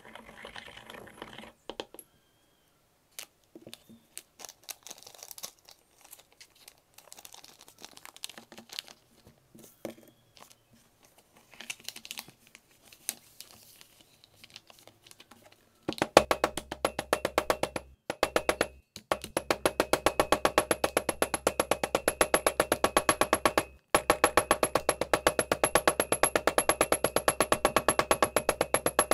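First, quiet scraping and rustling: a pestle grinding yellow pigment in a porcelain mortar, then sheets of paper being folded. About halfway through, a claw hammer starts tapping on orpiment lumps wrapped in folded paper, fast light strikes several a second with a few short pauses, crushing them before they are ground.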